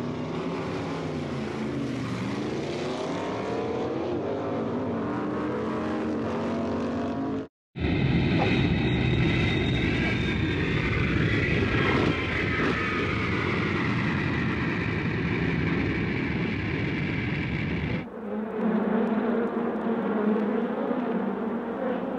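Vehicle-engine sound effects in separate clips cut together abruptly. First an engine whose pitch dips and rises again. Then a louder roar with a whine that falls slowly in pitch. Then a steadier hum.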